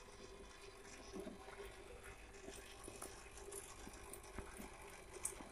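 Quiet background: a faint steady hum with a few soft ticks, the clearest two near the end.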